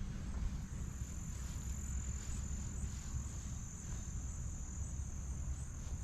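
Insects trilling steadily in one continuous high buzz, over a low steady rumble.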